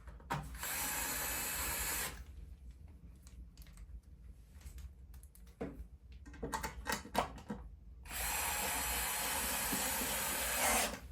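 Small 4-volt rechargeable electric screwdriver running to drive the screws of a water heater's thermostat cover. It runs twice, briefly about half a second in and for about three seconds near the end, with light clicks and knocks of handling between.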